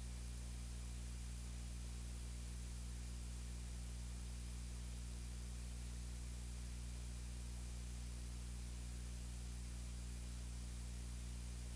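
A steady low electrical hum with a layer of hiss, unchanging throughout; no speech is heard.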